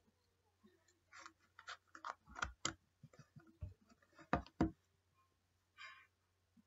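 Slime being handled, giving irregular small clicks and pops, with a few louder pops in the middle and a brief rustle near the end.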